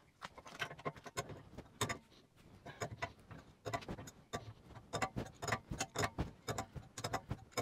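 Quick, light metallic clicks from a spanner working the nut on a bearing press kit's threaded bar as the wheel hub is drawn into the new front wheel bearing.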